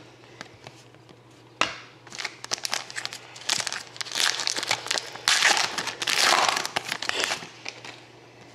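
A sealed trading-card pack's plastic wrapper being torn open and crumpled by hand, in a run of crinkling and tearing that starts about two seconds in, is loudest in the second half and dies away near the end.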